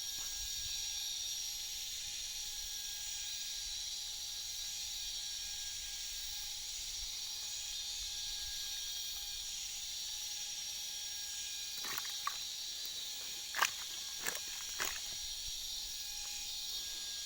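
Forest insects droning steadily at a high pitch, with a few short, sharp sounds between about twelve and fifteen seconds in.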